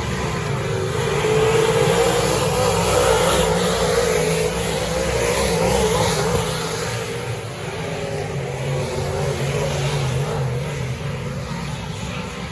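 Dirt modified race car engine running hard, its revs rising and falling. It is loudest in the first half.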